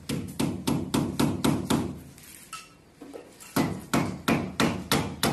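Hammer tapping nails into a wooden strip overhead: quick, even blows at about four a second, in two runs with a pause of about a second and a half between them.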